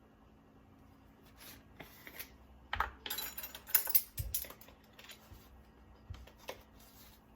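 Measuring spoon and spice containers clicking and clinking as a teaspoon of dried seasoning is measured out: a run of small sharp taps and knocks, the loudest a little under three and about four seconds in.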